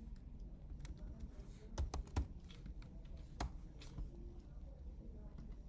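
A handful of scattered keystrokes on a computer keyboard, separate sharp clicks with gaps of up to a second between them, the clearest about two seconds in and around three and a half seconds in.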